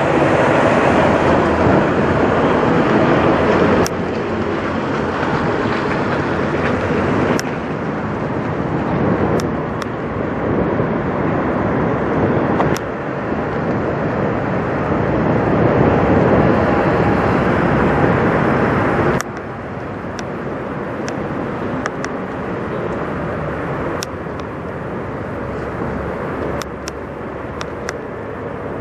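Steady noise of idling diesel truck engines, its level stepping abruptly up and down several times.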